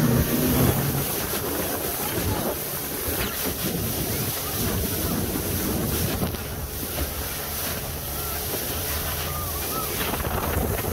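Tour speedboat running fast on open sea: wind buffeting the microphone over the rush of water and the steady drone of the engine.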